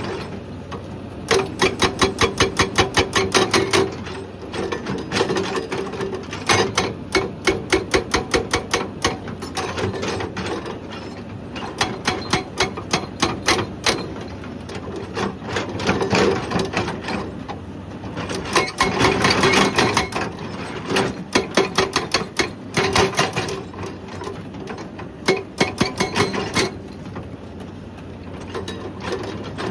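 Hydraulic breaker on a Hyundai excavator hammering rock in runs of rapid blows, about five a second, each run lasting a few seconds with short pauses between as the operator repositions the chisel.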